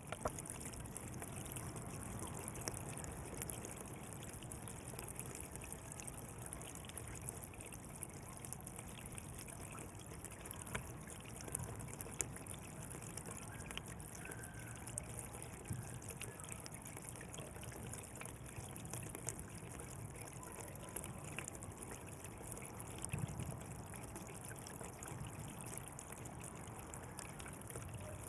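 Water flowing steadily along a channel, trickling and gurgling with small splashes.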